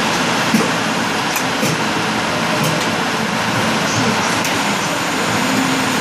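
Steady machinery noise on a factory floor around a servo press, with a few faint clicks.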